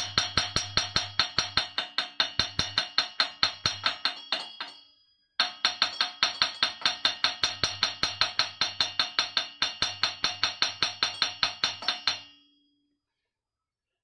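Hammer tapping rapidly, about five blows a second, on a steel gear puller clamped to a mower engine's crankshaft drive pulley, each blow ringing metallically; the pulley is stuck fast and not yet moving. The tapping pauses briefly about five seconds in and stops about twelve seconds in.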